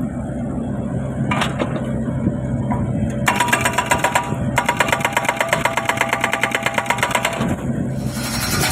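Kubota U50 mini excavator's diesel engine running while its hydraulic breaker hammers in rapid, evenly spaced blows, several a second. The hammering starts about three seconds in, breaks off briefly, stops shortly before the end, then starts again.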